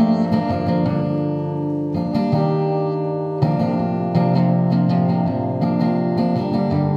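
Acoustic guitar strumming chords in an instrumental passage of a song, the chords changing every second or so.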